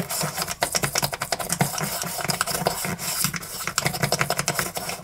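Old toothbrush scrubbing the inside of a small metal carburettor float bowl: quick, repeated brushing strokes of bristles against metal, cleaning out the bowl with carb spray. The strokes stop abruptly at the end.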